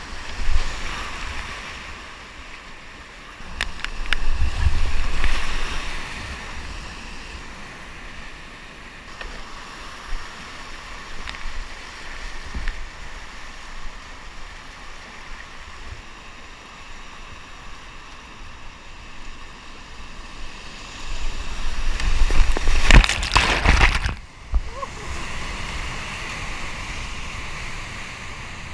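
Whitewater rapids rushing around a kayak as it runs them, a steady hiss of churning water. It grows much louder with low buffeting and splashing close by about four seconds in, and again for about three seconds near the end, where it cuts off sharply.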